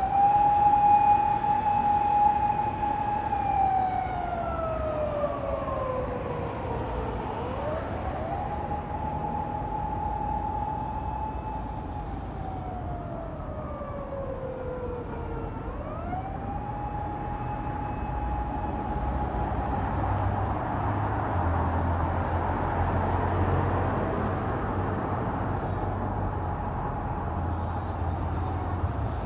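Emergency tow truck's siren wailing: each cycle rises quickly, holds a steady high note for a few seconds, then glides slowly down, three times over. The siren fades in the second half, leaving the rumble of heavy road traffic with a low engine hum.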